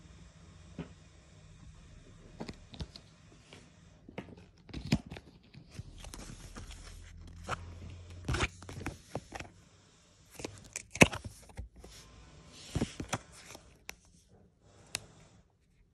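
Panini paper sticker being handled and its backing peeled off: scattered crinkles and sharp taps, with two longer rasping peels, one about six seconds in and one near thirteen seconds.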